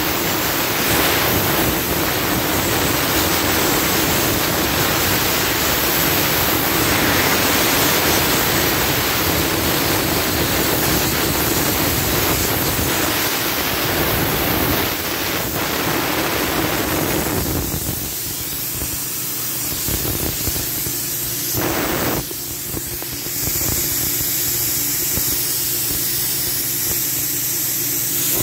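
Compressed air blasting from a blow gun on an air hose, a loud steady hiss as dust is blown out of an air compressor. Late on the blast thins to a higher, lighter hiss, with one brief full blast a few seconds after.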